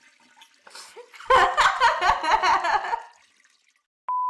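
A loud, distorted voice-like sound effect pulsing in quick even beats for nearly two seconds, then a steady half-second beep near the end.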